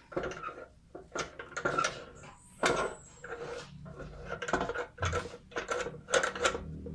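Sharp metallic clinks and knocks from a steel tool box being handled, about a dozen irregular strikes, each ringing briefly.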